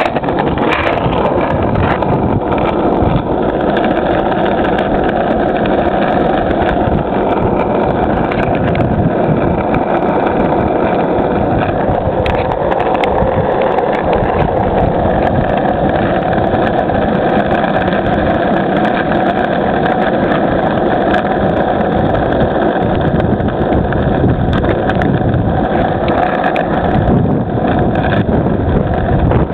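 Skateboard wheels rolling over rough asphalt: a steady, loud rumble with a few faint clicks.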